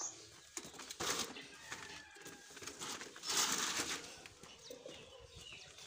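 A wooden-framed wire-mesh bird cage holding parrots being shifted across a concrete floor, with clattering and scraping: a short scrape about a second in and a longer one in the middle. Short high bird chirps come through between them.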